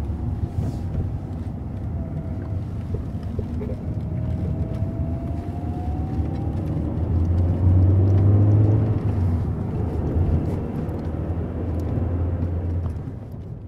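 Car driving, heard from inside the cabin: steady engine and road rumble, with a louder low drone from about seven seconds in, fading out at the end.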